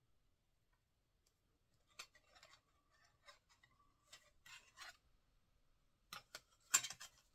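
Small plastic model parts being handled: a clear window piece and a black plastic frame rubbing and clicking against each other in short rustling spells, starting about two seconds in and louder near the end.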